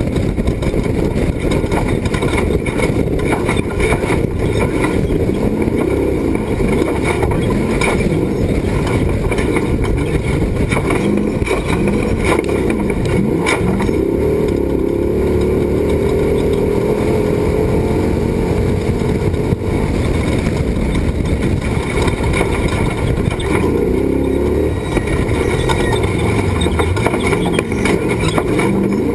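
Off-road race truck's engine running hard, its pitch rising and falling with the throttle, over a dense rumble with frequent knocks and rattles.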